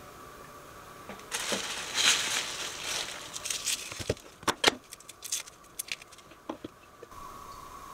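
Dry papery garlic skins crinkling and rustling as garlic cloves are broken apart and peeled by hand, followed by a run of sharp light clicks and taps.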